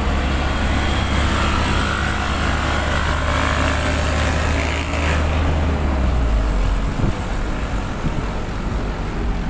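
Engine and road noise of a delivery truck heard from inside its cab while driving, a steady low rumble. About six seconds in, the engine note drops lower.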